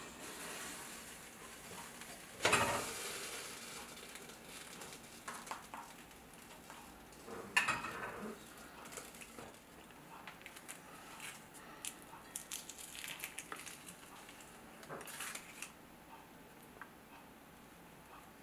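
Stainless steel steamer pot and lid clanking, one ringing metallic hit about two and a half seconds in and another clatter about seven and a half seconds in, followed by light clicks and taps of handling.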